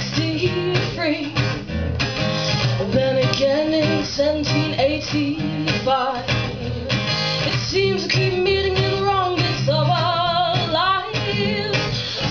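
A woman singing live to her own acoustic guitar, strummed in a steady rhythm.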